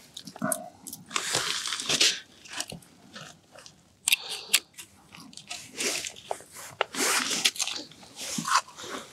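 Crunching of frosty snow and ice with small clicks and knocks of plastic gear as a pike tip-up is set over an ice hole, coming in irregular bursts with a short lull partway through.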